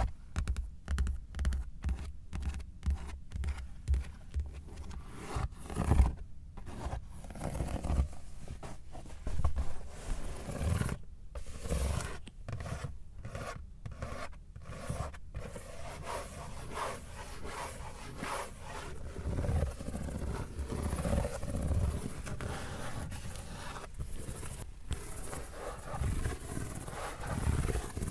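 Hands scratching, rubbing and tapping on a car's surfaces in quick short strokes, with brief silences between them at first and a more continuous rough rubbing later on.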